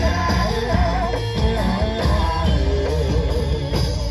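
Live Javanese gamelan ensemble playing, with a female singer's wavering, ornamented vocal line over drums and deep gong tones.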